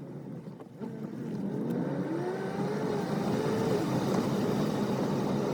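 Car engine accelerating, its note rising from about a second in and then levelling off at a steady drive.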